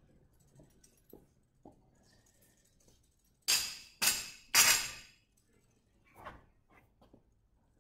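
Unloaded barbell clattering on rubber gym flooring as it is moved: three loud knocks about half a second apart, then a few lighter knocks.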